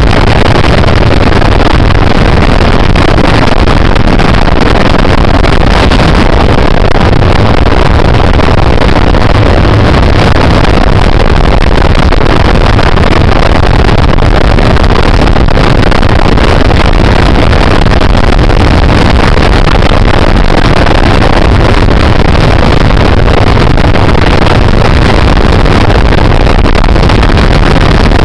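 Helicopter cabin noise in flight: the steady engine and rotor roar mixed with wind buffeting the microphone through the open door, so loud that it overloads the recording.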